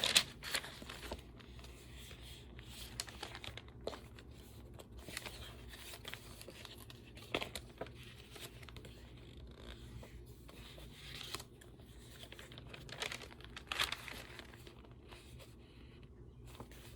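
Paper pages of a handmade junk journal being turned and handled, with irregular short rustles throughout.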